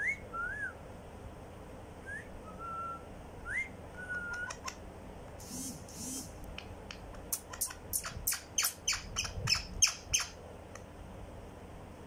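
Rose-ringed (Indian ringneck) parakeet whistling soft notes that glide up and down, then giving a couple of harsher calls about halfway through. Near the end comes a quick run of about a dozen sharp clicking notes, about four a second, the loudest part.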